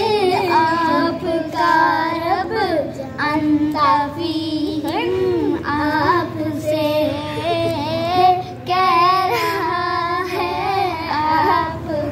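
Young children singing an Urdu naat, a devotional poem, with no instruments: one continuous melody with long held notes.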